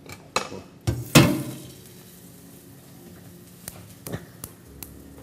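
Cookware and utensils clattering on a kitchen counter and hob: a few sharp knocks in the first second and a half, the loudest about a second in, then a few light clinks near the end.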